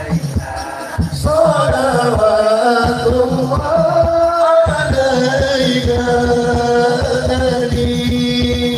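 Live Arabic devotional song (sholawat) sung by a group of men over a steady drum beat; the voices come in about a second in with long held notes.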